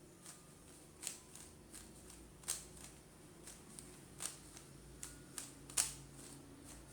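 A plastic Rubik's cube's layers being turned by hand: irregular clicks and clacks, about one or two a second, the loudest near the end.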